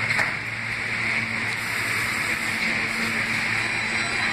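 R160 subway train standing at the platform, running with a steady hiss and a low hum.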